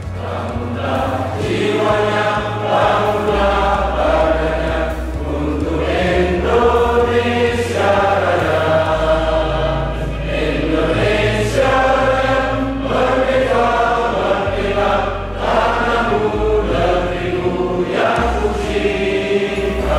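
A group of men and women singing together in unison, a sung anthem-like song, over a backing accompaniment that holds low bass notes changing every few seconds.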